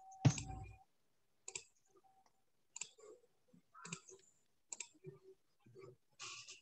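Scattered sharp clicks and taps, about half a dozen, with a louder one carrying a dull thump about a quarter second in.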